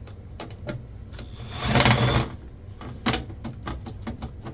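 A small power screwdriver runs for under a second, about a second and a half in, among sharp clicks and taps of metal computer parts being handled.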